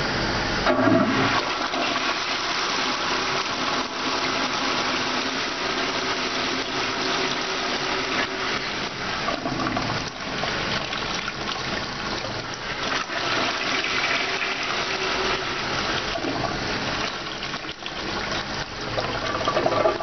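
American Standard sitting-style toilet flushing: a steady rush of water pouring into the bowl and draining down the trap, with a brief louder splash about a second in.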